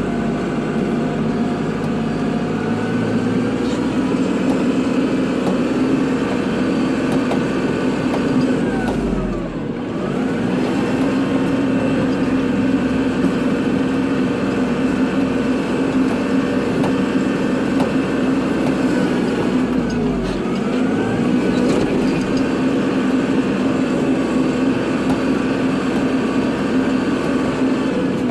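Kubota tractor's diesel engine running steadily at working revs while plowing snow. Its pitch sags and climbs back twice, about a third and two thirds of the way through and again at the end, each dip with a low thump.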